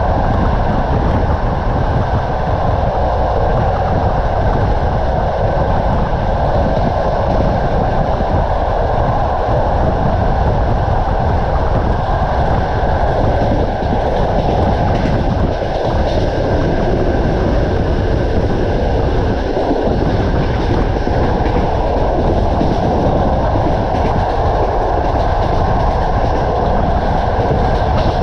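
Passenger railway carriage running along the track, a steady loud rumble of the wheels on the rails with some clickety-clack.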